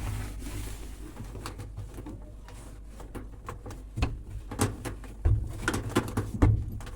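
Wiping and handling on a washing machine being cleaned: a cloth rubbing its sprayed surfaces, with scattered clicks and a few knocks, the loudest about four, five and six and a half seconds in.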